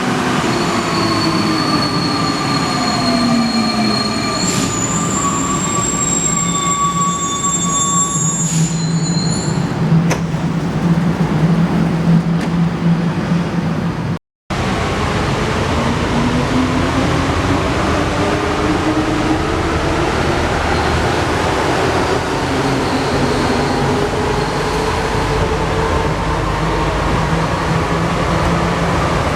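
Alstom NS-93 rubber-tyred metro train running. Its traction motor whine falls in pitch as it slows, with high squealing from the wheels over the first several seconds. After a brief cut, the whine rises steadily in pitch as the train accelerates.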